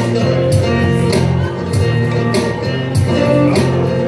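A live rap-rock band playing an instrumental passage: guitar and bass notes over a steady beat, with a sharp hit about every 0.6 seconds.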